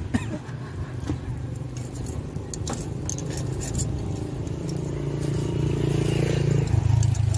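A motor engine running with a steady low hum that grows louder near the end, with a few metallic clicks and scrapes as the metal lid is lifted off the cast cookie mold.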